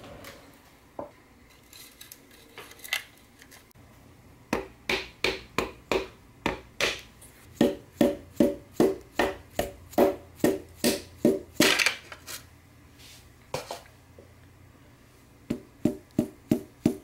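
A run of sharp taps, about two to three a second, as a piston is driven down through a steel ring compressor into the cylinder bore of a Subaru engine block with the end of a handle. Each tap rings briefly. The taps start about four and a half seconds in, stop around twelve seconds, and pick up again near the end.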